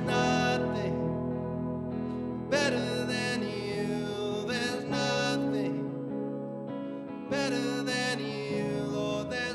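Soft, slow music with sustained chords. A new chord is struck about two and a half seconds in and again about seven seconds in.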